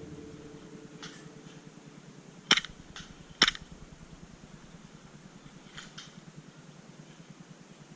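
Airsoft guns firing: two loud, sharp shots about a second apart a little way in, with a few fainter pops before and after.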